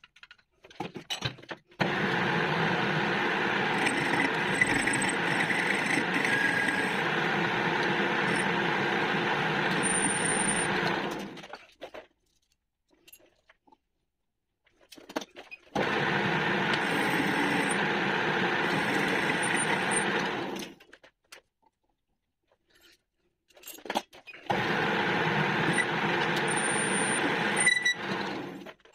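Metal lathe running three times, for about nine, five and four seconds, with a steady whine from its drive and gearing. It is stopped in between, and the bore of the steel tube in the chuck is checked with a caliper.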